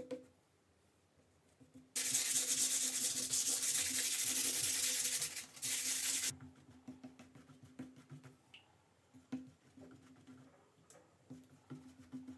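Sandpaper rubbed briskly back and forth over a ground-coated coarse canvas, a loud steady scratchy hiss that runs for about four seconds and then stops. Quieter light scrapes and taps of hand work on the canvas come before and after it.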